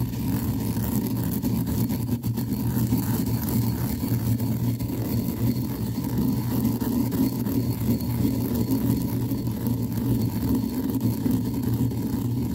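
Pestle grinding mustard seed in a mortar: a steady, rhythmic rumbling grind at about two strokes a second as the seeds are crushed toward a cracked powder.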